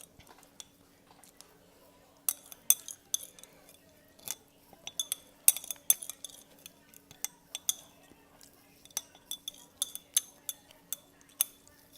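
Eating utensils clinking and tapping against a bowl: an irregular run of sharp clicks that starts about two seconds in, over a faint steady hum.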